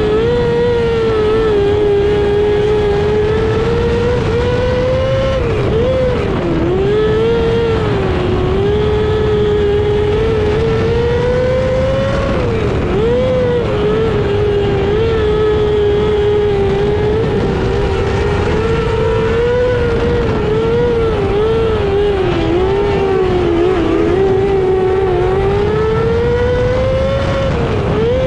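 Micro sprint car's motorcycle engine at high revs on a dirt oval, heard on board. Its pitch wavers up and down every few seconds as the throttle is eased and reapplied through the turns.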